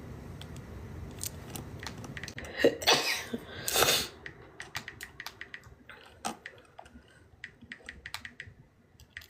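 A woman sneezing twice in quick succession, about a second apart, in the middle of a sneezing fit. Faint scattered clicks follow.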